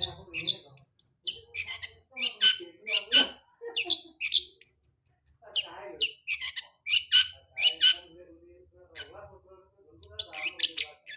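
Long-tailed shrike (cendet) singing: quick runs of sharp, harsh chattering notes with short pauses, and a brief high whistle about halfway through.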